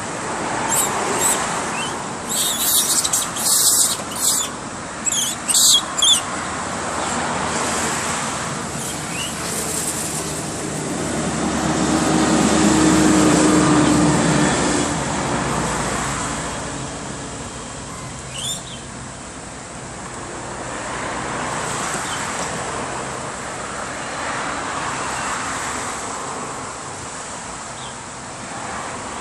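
Road traffic noise that swells as a vehicle passes about halfway through, with a cluster of short sharp sounds in the first few seconds.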